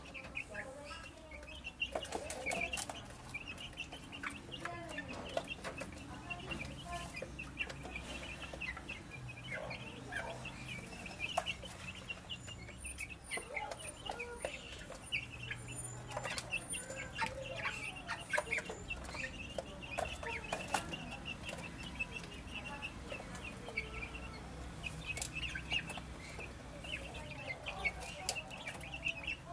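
A flock of young chickens peeping and clucking continuously in short high calls while they feed, with scattered sharp taps of beaks pecking at the feed.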